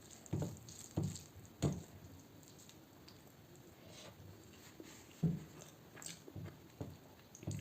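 Close-miked eating sounds: wet chewing and mouth smacks while eating fish curry, in short irregular bursts about once a second.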